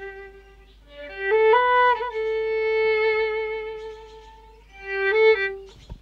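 Solo violin playing slow, long-bowed notes with vibrato: a phrase, a short break about a second in, then a note held for over two seconds before a few shorter ones.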